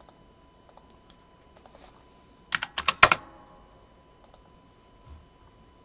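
Typing on a computer keyboard: scattered single keystrokes, with a quick run of about half a dozen about two and a half seconds in, the loudest part.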